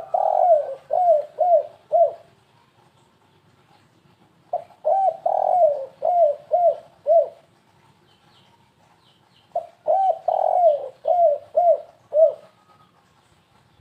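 Spotted dove (tekukur) cooing in the stuttering 'kuk 3' style, a call used to lure other doves. Three phrases come about five seconds apart, each made of six or seven short falling coo notes.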